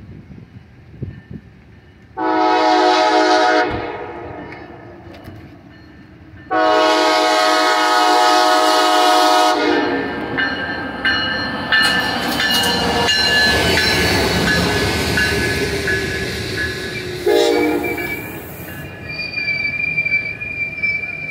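Amtrak Siemens Charger diesel locomotive sounding its horn for the crossing: a blast about two seconds in, a longer blast from about six seconds, and a brief toot near seventeen seconds. Between these, the train passes with a steady rumble and clatter of its bilevel Superliner cars' wheels. Over the last few seconds a steady high wheel squeal comes in.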